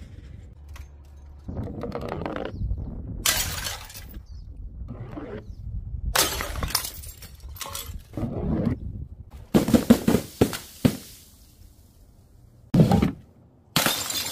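A string of separate smashes and splats as containers are dropped onto stone paving and burst, with glass breaking. The loudest is a cluster of sharp cracks about ten seconds in, with two more hard smashes near the end.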